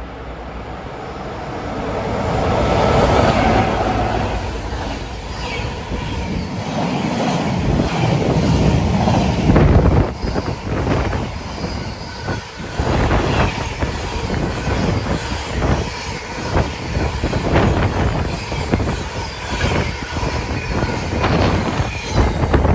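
Container freight train headed by Class 90 electric locomotives passing at speed. The noise builds to a peak about three seconds in as the locomotives go by, then a long run of container wagons clatters past, wheels rattling on the rails.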